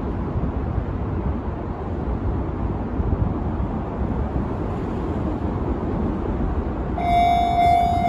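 Steady low rumble, then about seven seconds in a Japanese level crossing's warning alarm starts ringing with a steady high tone as the crossing begins to close for an approaching train.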